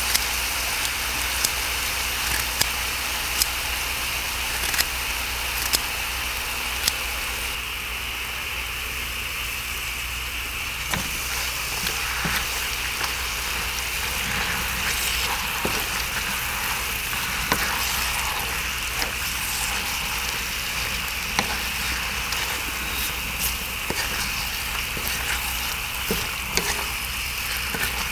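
Pork and kimchi sizzling on a cast-iron cauldron lid, a steady hiss over a low rumble. Over the first several seconds scissors snip through the kimchi about once a second; after that a wooden spatula stirs and scrapes the food across the lid.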